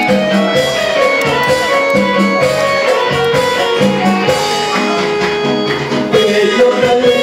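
Background music led by a plucked guitar, with a steady beat.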